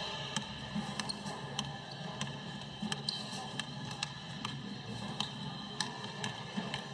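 Basketball bouncing on a hardwood gym floor as a player dribbles, a sharp bounce roughly every half second to second over a steady background hum.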